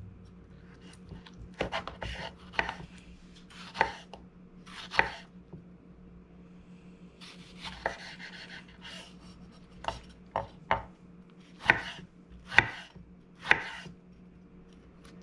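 A chef's knife cutting through a lime and then slicing a tomato, each cut ending in a sharp knock on a wooden cutting board: about a dozen separate strikes at uneven intervals, several close together in the second half.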